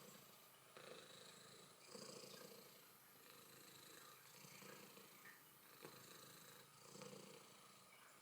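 Domestic cat purring faintly, the purr swelling and fading every second or two.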